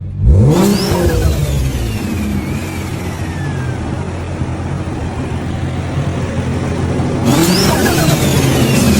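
Nissan GT-R's 3.8-litre twin-turbo V6 revved sharply, then running steadily, then revved sharply again about seven seconds in. A high whine falls slowly after each rev.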